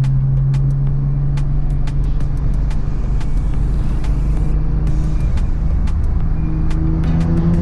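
Nissan GT-R R35's 4.1-litre stroker VR38 twin-turbo V6 with a 4-inch stainless exhaust, cruising at a steady drone over road noise. The note eases off about halfway through and climbs a little near the end, with a few scattered light clicks.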